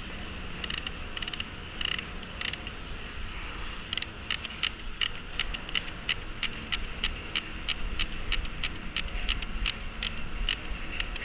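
Sharp plastic clicks from the front mechanism of a Lego Technic halftrack model being worked by hand: a few scattered clicks, then a fast regular run of about four to five a second. A faint steady high tone runs underneath.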